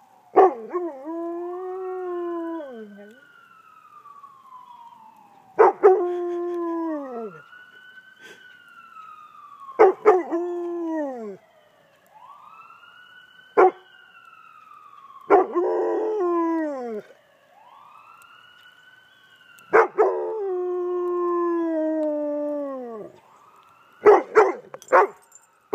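Yellow Labrador retriever howling along with an ambulance siren: about seven long howls, each starting sharply and sliding down in pitch at the end, with the siren's slow rising and falling wail heard between them.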